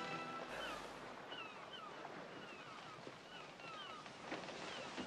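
Soft waterside ambience: a gentle wash of water with birds chirping in short, repeated calls, and a couple of light knocks near the end. The tail of an orchestral score fades out just at the start.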